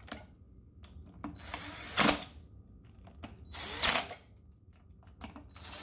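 Cordless drill driving bolts into the scooter's aluminium hub-motor cover in two short bursts, about two seconds apart, with a few faint clicks between.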